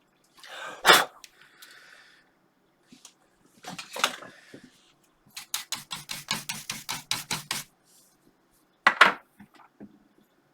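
Clicks and knocks from hard parts being handled inside an opened desktop PC. There is a knock about a second in and another about four seconds in, then a quick run of about a dozen clicks at about six a second, and a sharp knock near the end.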